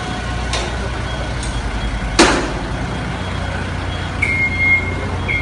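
Doosan forklift's engine running steadily, with one sharp bang about two seconds in. About four seconds in, the forklift's warning beeper starts, sounding roughly once a second.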